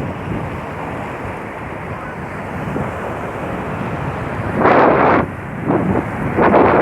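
Sea waves washing on the shore with wind buffeting the microphone, a steady rush that swells louder about two-thirds of the way through and again near the end.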